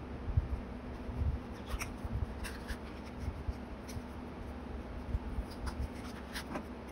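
Hands handling paper on a notebook page: soft rustles and scattered light taps as a photo is pressed down and a small paper sticker is picked from its sheet.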